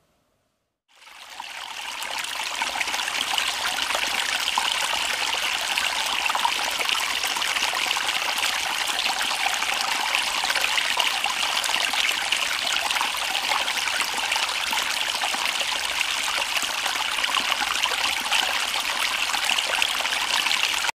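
Shallow stream babbling and trickling over rocks, a steady rush of running water that fades in about a second in and cuts off abruptly at the end.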